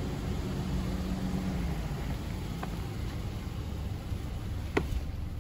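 Minivan engine idling, a steady low hum, with a light tick about halfway through and a sharper click near the end.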